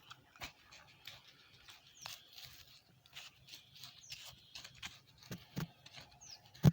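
Soil and manure being scraped and turned over: irregular scratching and scraping strokes, with one sharp, louder thud just before the end.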